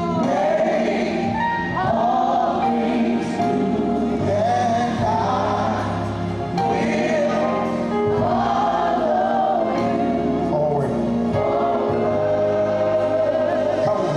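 Gospel choir singing a slow worship song, holding long notes over steady instrumental accompaniment.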